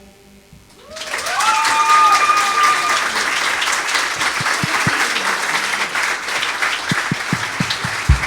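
Audience applauding and cheering at the end of a live song, starting about a second in as the last sound of the band dies away. A couple of high whistles rise and hold in the first seconds of the applause.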